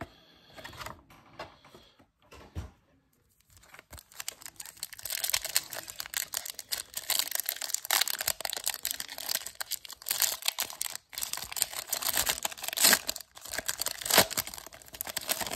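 Foil wrapper of a 1999 Topps Chrome baseball card pack crinkling and tearing as it is ripped open by hand. For the first three seconds or so there are only a few light taps of cardboard box handling, then the crinkling starts and goes on densely.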